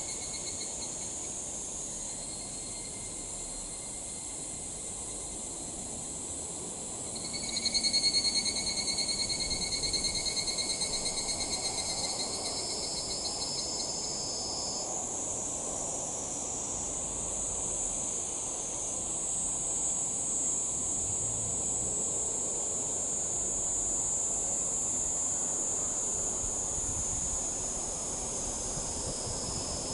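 Several higurashi (evening cicadas, Tanna japonensis) calling at once: high, rapidly pulsed trills at different pitches that overlap and trade off. A nearer, louder one comes in about a quarter of the way through and stops about halfway.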